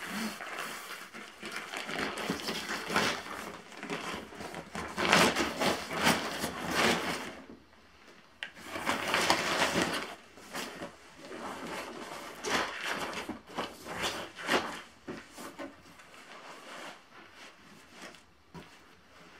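Crinkling and rustling of a deflated Sea to Summit Comfort Plus insulated sleeping pad's fabric as it is unrolled and spread flat by hand, in irregular bursts that are loudest in the middle and die down near the end.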